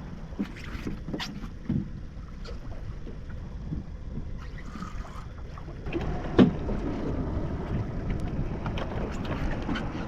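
A fishing boat running at sea: a steady low rumble with water and wind noise on the microphone, and scattered small knocks and clicks. About six seconds in it grows louder, with one sharper knock.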